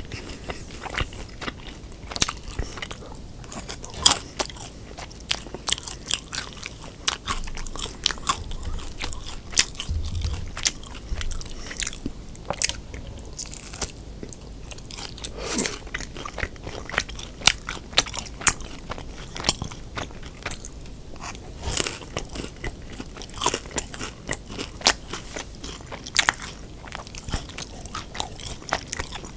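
Close-miked eating: biting and chewing sweet and sour pork and fried rice, with many sharp, irregular crunches.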